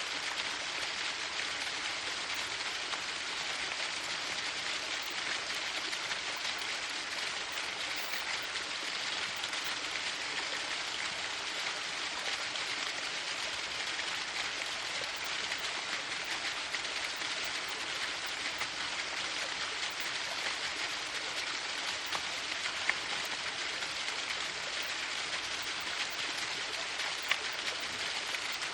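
Waterfall: water falling and splashing in a steady, even hiss with no change.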